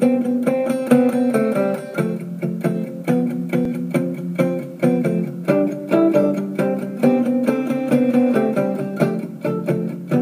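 Background music: a plucked acoustic guitar picking a repeating pattern of notes at a steady pace.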